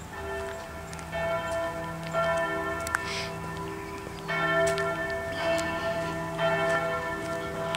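Bells ringing. Several bells are struck in turn, about every second or two, and their tones overlap and ring on.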